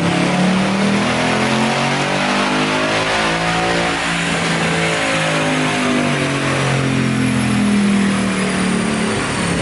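2019 Mustang GT's 5.0 V8 making a wide-open-throttle pull on a chassis dyno, running loud under load with its pitch sweeping up and then back down.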